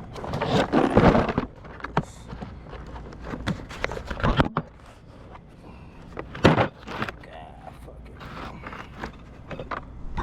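Loose metal tools and sockets clattering as a disordered tool set is handled, with a loud rattle about half a second in and several sharp knocks and clicks after it.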